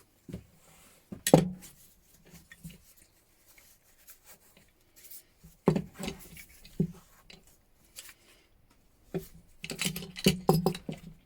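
Metal wrenches being handled and set down, knocking and clinking on a hard surface: a sharp knock about a second in, two more a few seconds later, and a quick run of clinks near the end.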